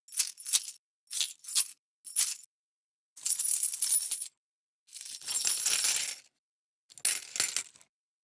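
Metal coins in a run of separate sound effects, each cut off by silence: five short clinks of coins dropping in the first two and a half seconds, then two longer coin rattles of about a second each, and a shorter one near the end.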